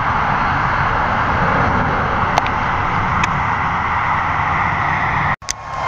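Steady outdoor road-traffic noise with a couple of faint clicks. Near the end the sound cuts out for a moment, and an emergency-vehicle siren starts its falling wail.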